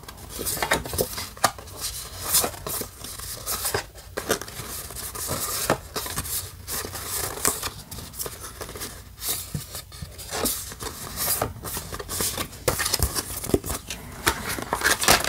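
Stiff glossy art cards being flipped and shuffled through by hand: a run of irregular card-stock clicks and slides.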